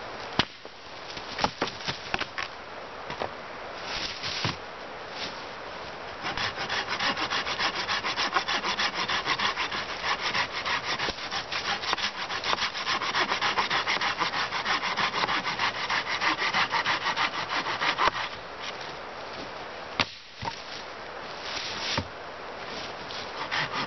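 A small hand saw cutting through a dead wooden branch in quick, even back-and-forth strokes for about twelve seconds, with scattered knocks and snaps of wood before and after.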